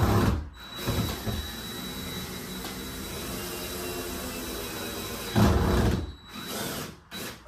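Cordless drill driving a long screw through the wall to the outside, its motor running steadily under load for several seconds. There are heavier thumps at the start and about five and a half seconds in.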